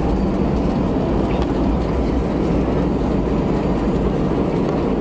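Airbus A320 rolling out on the runway just after touchdown, heard from inside the cabin: a steady rumble of engines, rushing air and wheels on the runway.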